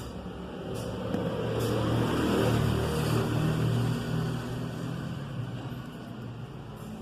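A motor vehicle's engine passing by, getting louder to a peak about halfway through and then fading.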